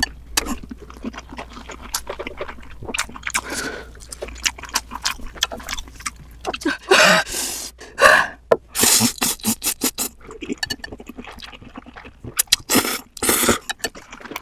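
Close-miked eating sounds of spicy ghost pepper noodles: many short clicks, slurps and chewing noises, with a few sharp breaths from the heat in between.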